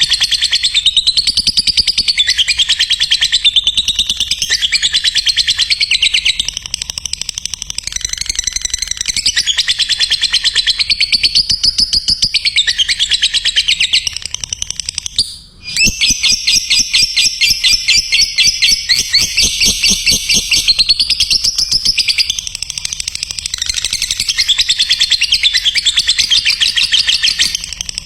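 Lovebird singing a long, fast chattering song (ngekek): a rapid unbroken string of shrill chirps, with one brief pause about halfway through.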